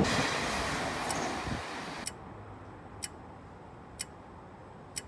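Nishitetsu electric train running past the platform, its rail noise fading away over the first two seconds. Then a clock-like countdown tick sounds once a second, four times.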